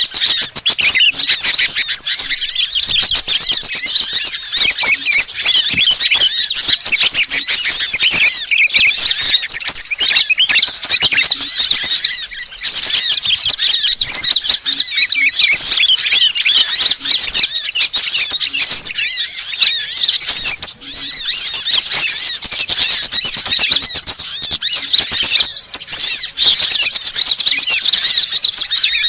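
A dense, continuous tangle of many small songbirds' high chirps, squeaks and rapid trills layered over one another: a bird-trapping lure (pikat) call recording mixing sunbird and bulbul calls.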